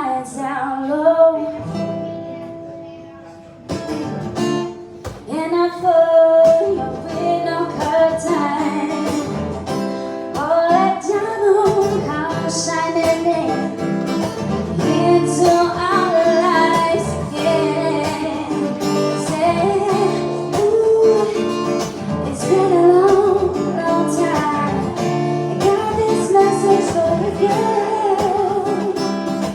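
Live song: a singer with acoustic guitar accompaniment, the guitar strummed under a sung melody. After a brief lull near the start, the song picks up about four seconds in and carries on steadily.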